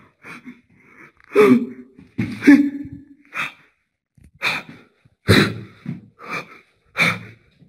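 A man breathing hard in quick, noisy gasps and exhales, about one or two a second, a couple of them with a voiced catch.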